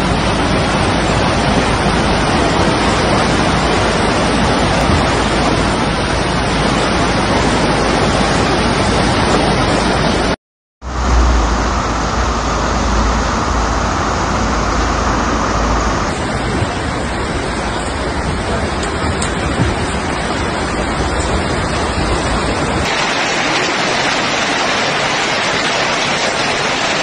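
Floodwater rushing and pouring down stairs: a loud, steady rush of water, heard in several pieces, with a short silence about ten seconds in.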